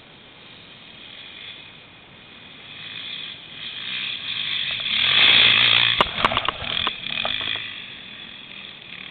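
An enduro motorcycle engine coming up the slope toward and past, getting louder to a peak about five seconds in and then fading away. A couple of sharp knocks sound just after the loudest point.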